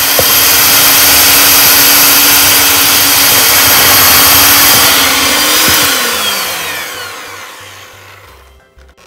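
Electric hand mixer running at speed, its beaters whirring through thick cream cheese icing as powdered sugar is added. About six seconds in it is switched off and the motor winds down with a falling whine.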